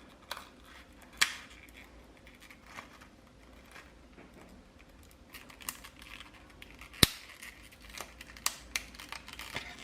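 Packaging of a new RAM kit being opened by hand: scattered small plastic clicks and rustling, with one sharp snap about seven seconds in.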